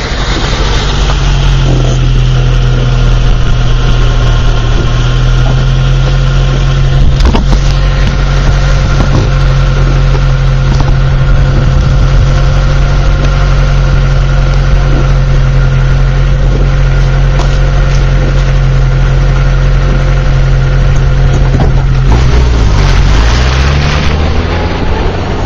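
1990 Geo Tracker's four-cylinder engine running at steady revs, then the revs dip and climb again near the end.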